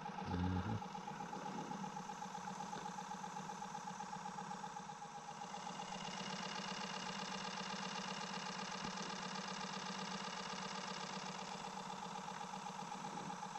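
Faint steady mechanical hum from a small motor on the boat, made of several tones with a fine rapid pulse, becoming a little louder about halfway through. A soft low thump comes about half a second in.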